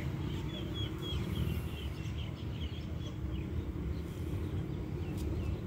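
A bird calling a quick run of short, repeated chirps through the first half or so, over a steady low rumble.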